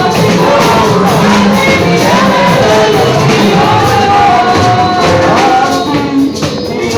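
Church worship song: voices singing loudly over instruments and percussion, with some shouting along. The music thins briefly near the end.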